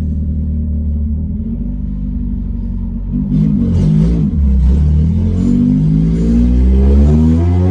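Honda H22 four-cylinder engine breathing through a 3-inch big-tube header, very loud: a steady drone at first, then about three seconds in it gets louder under hard acceleration, the pitch dipping once and then climbing steadily.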